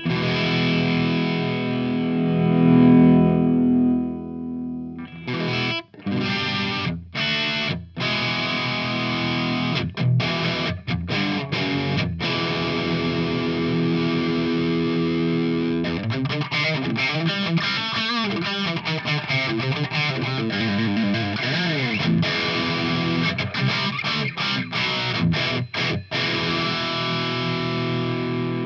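Electric guitar played through a Joyo JF-16 British Sound amp-simulating overdrive pedal, giving a distorted tone. A chord rings out for about four seconds, then short choppy chords with gaps between, then busy continuous riffing through the second half.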